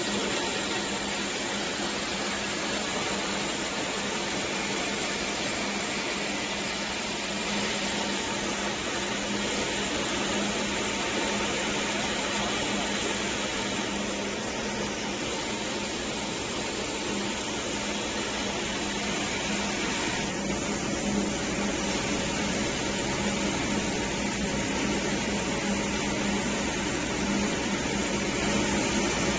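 OYCM15C combined rice mill machine running steadily: a constant motor hum under an even rushing noise as rice moves through the mill.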